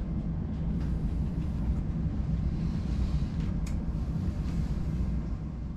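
Steady low rumble of a Nordhavn 55 trawler's diesel engine running as the boat gets under way, with one brief faint tick partway through.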